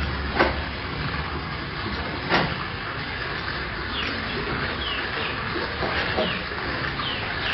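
Two sharp knocks about two seconds apart, then several short, high, falling chirps over a steady background hiss.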